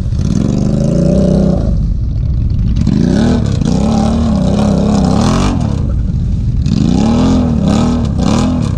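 ATV engine revving hard in repeated throttle surges, its pitch rising and falling several times.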